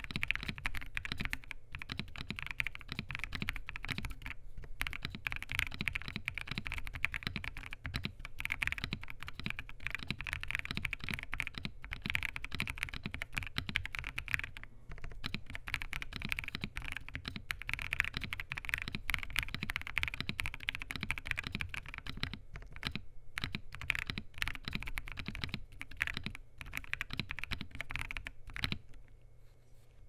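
Fast continuous typing on a KBDfans Tofu65 2.0 mechanical keyboard in top-mount configuration with a polycarbonate plate, lubed and filmed WuqueStudio WS Morandi linear switches and PBT keycaps, and no case foam. Dense keystroke clacks with a few short pauses, easing off near the end.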